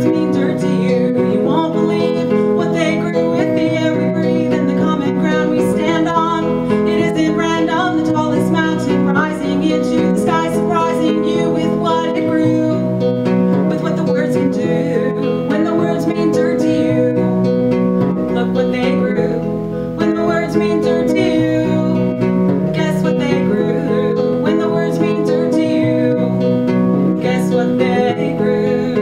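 A woman singing a song to her own acoustic guitar accompaniment, the guitar playing steady chords under her voice.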